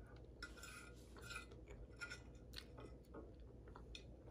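Metal fork scraping and clicking on a nearly empty plate, scooping up the last bits of food: faint, with a few short clicks and squeaky scrapes.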